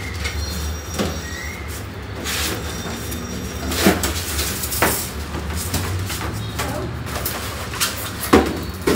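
Packaging being handled while an air conditioner's indoor unit is unboxed: plastic wrap rustling and polystyrene and cardboard scraping, with a few sharp knocks, over a low steady hum.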